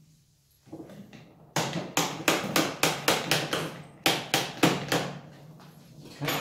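Small hammer tapping a metal pin into the aluminium suspension parts of a large RC truck. The strikes come in two quick runs, about four a second, with a short pause between.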